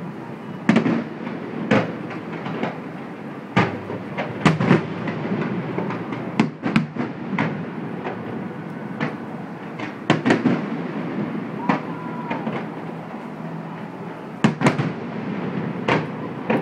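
Fireworks display: a dozen or so sharp bangs at irregular intervals over a continuous low rumble.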